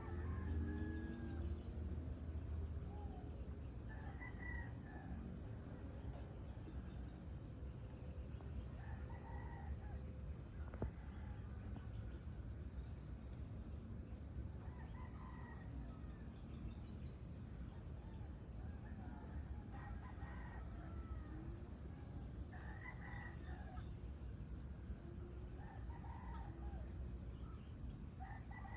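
Roosters crowing every few seconds over a steady high-pitched insect drone and a low rumble.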